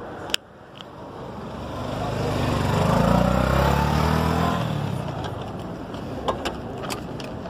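A motor vehicle passing close by, its engine growing louder to a peak about three seconds in and then fading away. A single sharp click comes just before it.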